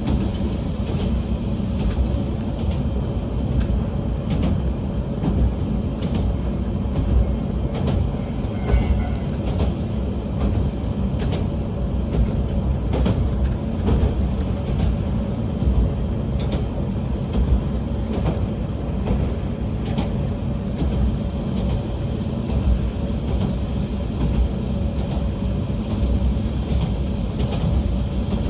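Diesel railcar running along the track, heard from inside the car: a steady low rumble with a faint steady whine and scattered clicks of the wheels over rail joints.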